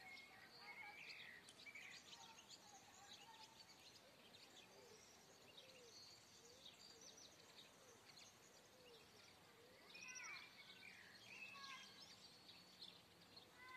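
Faint birdsong: several small birds chirping and twittering, with a lower note repeated about twice a second for a few seconds in the middle.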